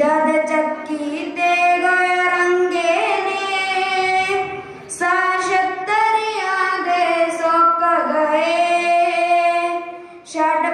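A girl singing solo into a microphone in long held notes, breaking briefly for breath about four and a half seconds in and again near the end.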